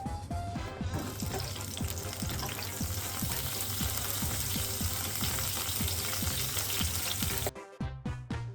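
Food sizzling in a hot frying pan, starting about a second in and stopping abruptly near the end, over background music with a steady beat.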